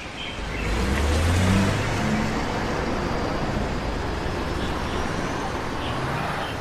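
A car driving, its engine and tyre noise swelling about a second in and then running steady.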